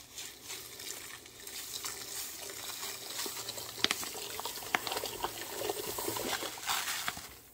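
Caswell bright nickel plating crystals pouring from a plastic bag into a stainless steel pot of hot distilled water: a steady hissing patter of granules hitting the water, with scattered sharper ticks. It cuts off near the end.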